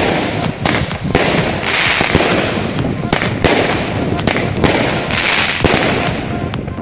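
Fireworks going off overhead: a close succession of loud bangs with continuous crackling between them.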